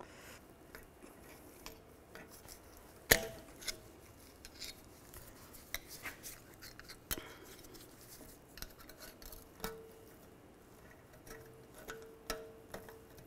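Steel screwdriver tips scraping and clicking against a steel snap ring as it is pried out of the rear wheel bearing bore, with a sharp metallic click about three seconds in and lighter ticks and scrapes after it.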